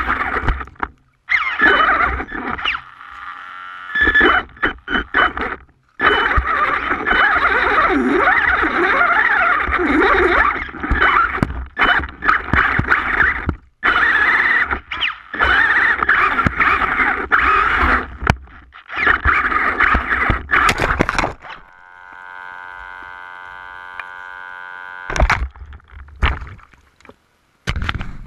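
An HPI Savage Flux electric RC monster truck's brushless motor and drivetrain whine and rattle in loud, irregular bursts as it is driven over rough ground, heard close up from a camera mounted on the truck. The bursts cut out abruptly between runs. About three-quarters through, a quieter steady buzzing tone holds for about three seconds.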